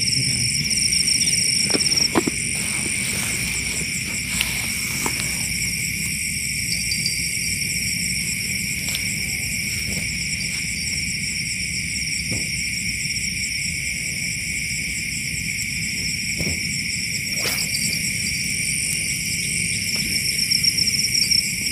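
Night insect chorus: crickets and other insects trilling steadily at several pitches, the highest trill dropping out about two seconds in and returning near the end. A few faint knocks of handling sound through it.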